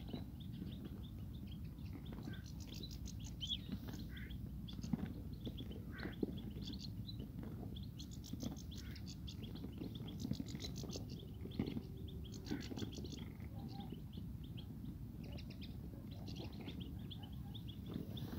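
Birds chirping: short bursts of rapid high notes every second or two, with scattered single chirps between, over a steady low rumble.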